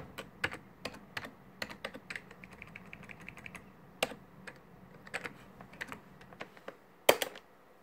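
Computer keyboard being typed on: irregular key clicks with a quick run of light taps in the middle, and one louder click near the end.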